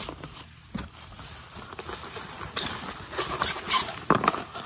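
White wrapping being handled and unfolded close to the microphone: irregular crinkling and rustling with scattered sharp taps and clicks.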